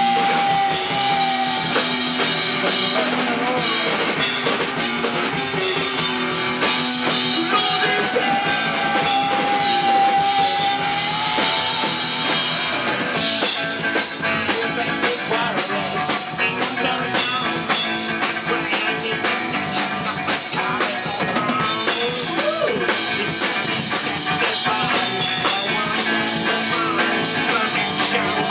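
Rock band playing: drum kit, electric guitar and bass guitar, with a few long held notes.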